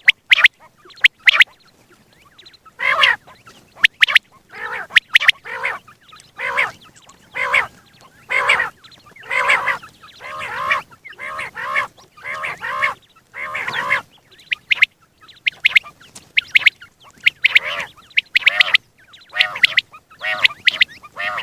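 Common quail calling over and over: short nasal calls about once a second, with quick sharp notes among them.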